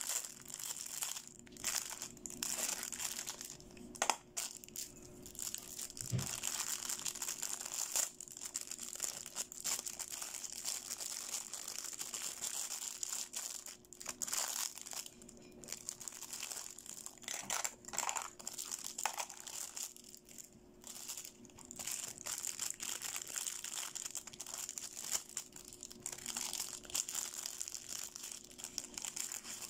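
Clear plastic packaging crinkling and crackling as hands unwrap toy makeup pieces, makeup brushes and a glitter nail file in cellophane bags. The crinkling comes in uneven bursts with small clicks.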